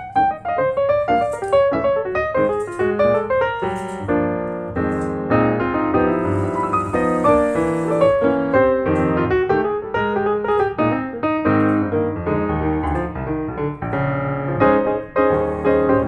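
Background piano music: a steady run of piano notes and chords.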